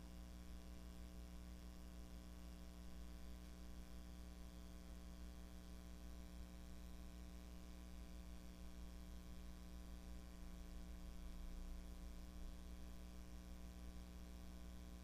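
Faint, steady electrical hum: room tone with no speech or other events.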